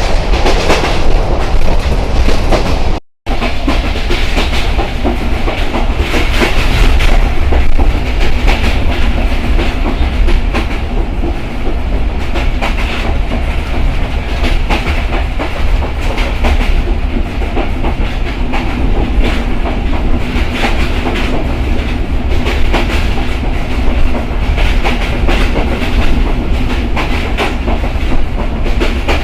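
Simanta Express passenger train running along the track, its wheels clattering over the rail joints in a continuous clickety-clack over a loud, steady rumble. About three seconds in the sound cuts out to silence for a split second, then carries on.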